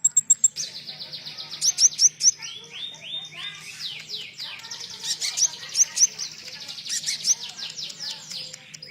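Konin songbird tutoring song with cililin phrases mixed in. It opens on a very high, rapid trill, then runs into a fast, dense chatter of quick downslurred notes without a break.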